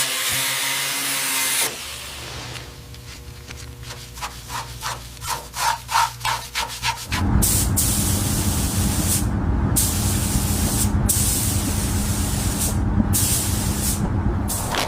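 Restoration work on a car: a power tool running, then a run of quick, regular rubbing strokes, then a loud steady machine noise with a low hum from about 7 seconds in, broken by brief pauses.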